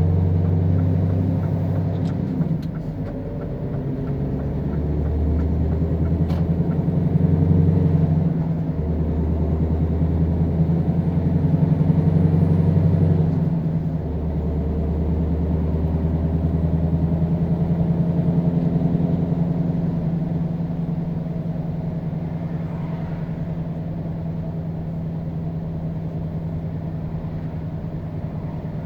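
Scania R520's V8 diesel engine running under a heavy load, its note shifting and swelling a few times in the first half, then holding steady.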